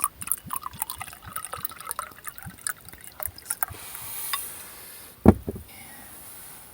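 Wine being poured into a glass: a run of small splashes and glugs, then a rising filling sound, followed by one sharp thump about five seconds in.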